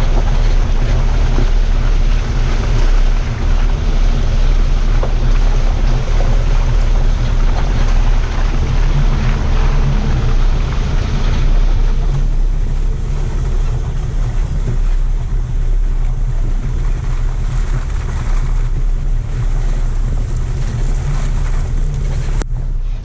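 Off-road vehicle driving slowly along a muddy lane: a steady low rumble of engine and tyres, with wind buffeting the microphone. There is a short break near the end.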